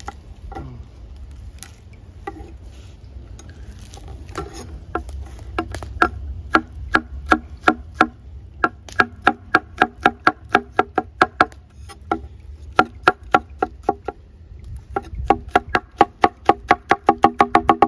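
A knife chopping on a wooden cutting board: a few scattered cuts at first, then a steady rhythm of about three strokes a second that quickens near the end.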